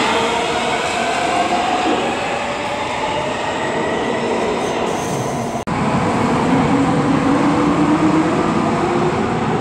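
Nuremberg U-Bahn metro trains running through an underground station, with an electric motor whine over the rumble of the running gear. Partway through, an abrupt cut leads to a DT2 train pulling away, its motor whine rising in pitch as it accelerates.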